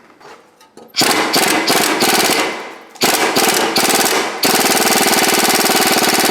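Pneumatic air tool hammering rapidly against the rusted nuts of an exhaust pipe flange. It goes in three bursts: two short ones and a longer run of about two seconds near the end.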